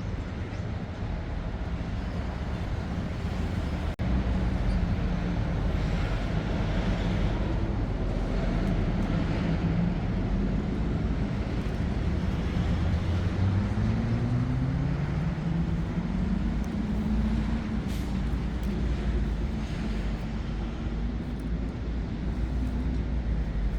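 Road traffic: a steady low rumble of passing vehicles, with an engine note rising in pitch through the middle as a vehicle pulls away.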